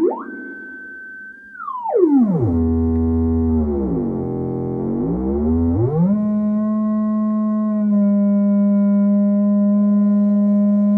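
Square-wave audio oscillator of a Portabellabz 208 Toolbox, its pitch swept by hand through the Buchla Music Easel. The tone glides up at once to a high held pitch. Near two seconds in it drops steeply to a low, buzzy tone, sinks lower still, then climbs back and settles on a steady mid-pitched tone.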